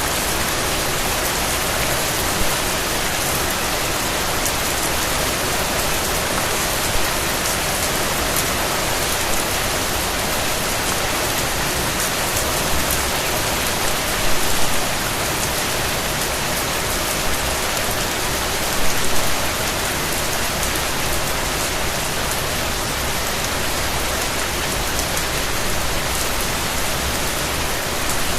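Steady rain falling, with a dense hiss and fine patter of drops hitting a surface; a few brief louder spatters about halfway through.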